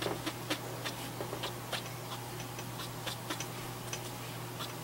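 Light, irregular ticks of felt brush-marker tips tapping and stroking on paper while an image is colored, a few ticks a second, over a steady low hum.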